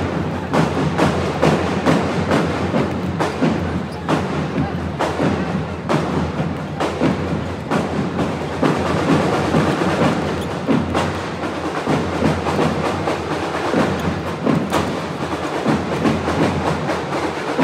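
Music playing over an arena's sound system, with many basketballs bouncing on the hardwood court in sharp, irregular knocks throughout.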